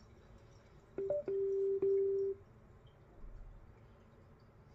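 Teufel Bluetooth speaker sounding its electronic prompt tones as its buttons are pressed: button clicks, a short higher beep, then a steady lower tone held for about a second.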